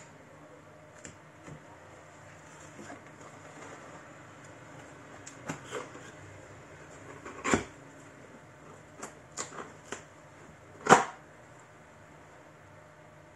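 Handling noises: a series of light clicks and taps as hard plastic parts are moved and set down, with two sharper knocks, the louder one about eleven seconds in.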